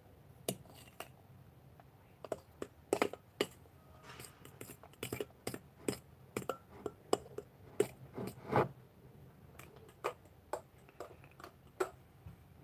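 Irregular clicks, taps and knocks of hands and utensils working at a glass bowl of foamy mixture, some two dozen in all, with a longer squelchy scrape about eight and a half seconds in.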